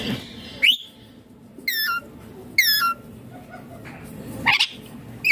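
Indian ringneck parakeet calling: four short, high, shrill calls spaced a second or so apart, each bending sharply in pitch.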